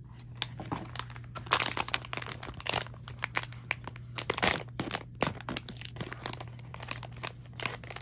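Crinkling and tearing of a blind box's packaging being opened by hand: irregular crackles throughout.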